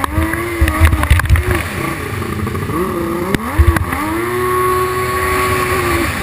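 Racing jet ski engine revving hard, its pitch dropping and climbing again several times, then holding high and steady for a couple of seconds near the end. A few short low thumps cut in about a second in and again past the middle.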